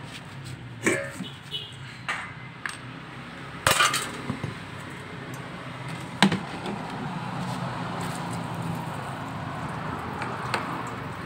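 Metallic clinks and knocks as an engine valve is pulled from the cylinder head and handled over a stainless steel bowl, then a steady splashing of liquid poured into the bowl through the second half.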